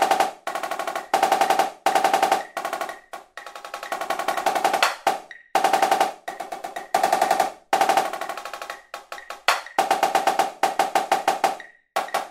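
MIDI-rendered Virtual Drumline marching snare drum playing an advanced etude at 124 beats per minute. It plays rapid accented sixteenth-note and triplet runs that move between centre, edge and halfway on the head, in louder and softer phrases broken by brief rests.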